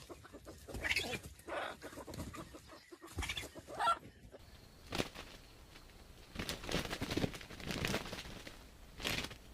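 Chicken clucking in short, irregular calls, with a sharp knock about five seconds in.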